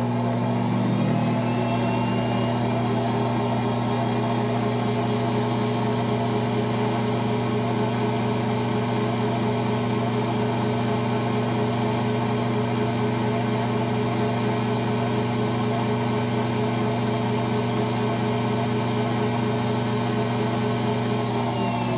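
Treadmill motor driving a MAXNC CNC mill spindle: it speeds up over the first couple of seconds to full speed, about 4,100 RPM, runs steadily with a hum and a high whine, then starts to slow near the end.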